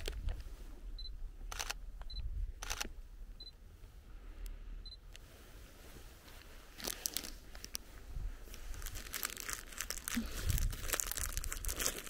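A Sony a7III mirrorless camera gives several short high focus-confirm beeps and two shutter clicks in the first few seconds. From about halfway, a plastic snack packet is crinkled repeatedly.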